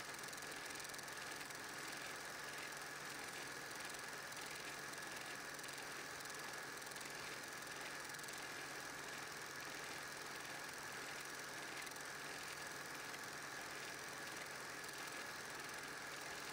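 8mm film projector running: a faint, steady motor hum and whir with an even mechanical clatter, under hiss.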